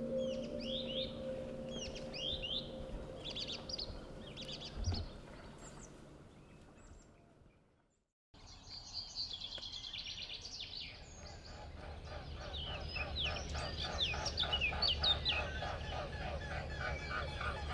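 Small birds chirping and singing, with quick falling whistled notes. It fades out to a moment of silence about eight seconds in, then birdsong starts again, busier, over a low rumble that builds toward the end.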